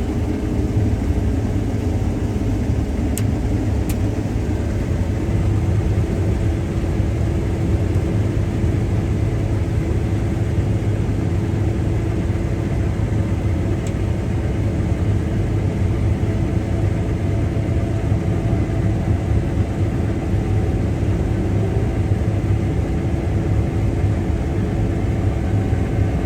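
Case IH Axial-Flow combine running steadily while harvesting soybeans: a constant low engine drone with a steady machinery hum over it.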